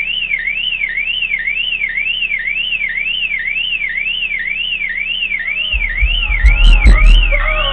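Suzuki Vitara's car alarm siren wailing, its pitch sweeping up and down about twice a second. About six seconds in, deep bass thumps from an Ascendant Audio Mayhem 18-inch subwoofer start under it.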